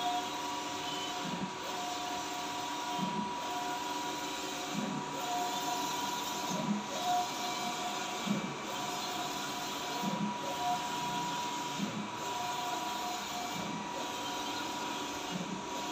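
Audley S2000 wide-format printer with Epson DX5 print heads printing, its head carriage shuttling back and forth across the media in an even rhythm, one out-and-back pass about every second and three quarters, over a steady motor whine.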